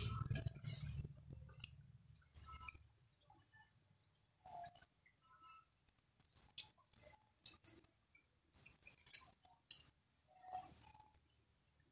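A bird calling over and over, a short high falling chirp about every two seconds, with a few sharp clicks in between.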